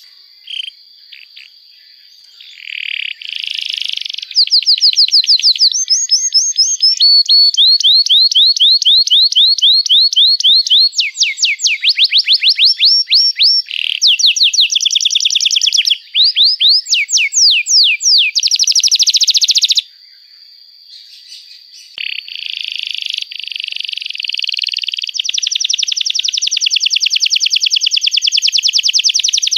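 Domestic canary singing a long song of rapid repeated trills, phrase after phrase at changing speed and pitch, with a brief pause about twenty seconds in.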